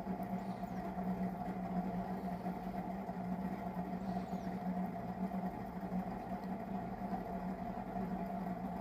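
A steady low machine hum, two constant tones that do not change.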